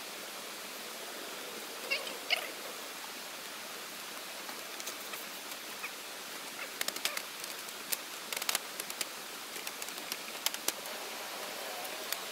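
Split bamboo slats and poles clacking and knocking against each other as they are fitted into a hut wall: a couple of knocks about two seconds in, then a run of quick clacks in the second half, over a steady rushing background noise.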